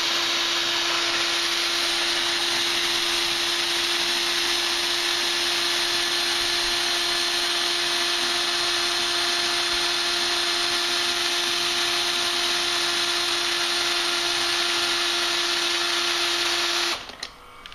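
Cordless drill with a socket attachment running steadily in reverse at one constant pitch, turning the scissor-jack wind-up nut to lower a caravan mover's motors on their swing-away mount. It stops shortly before the end.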